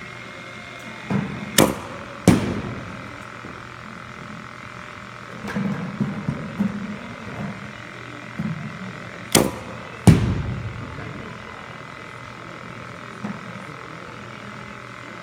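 Batting practice in an indoor batting cage, with sharp impact cracks of bat and ball. They come in two rounds about eight seconds apart, each a pair of cracks less than a second apart, with fainter thuds between.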